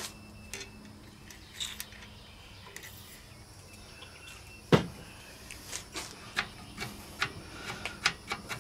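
Light clicks and taps from hands and tools handling a small Briggs and Stratton engine on a workbench, with one sharp knock a little before halfway through.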